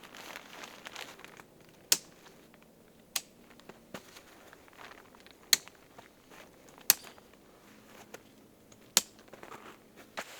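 Rustling and crinkling of gear being handled, broken by five sharp single clicks spread a second or two apart.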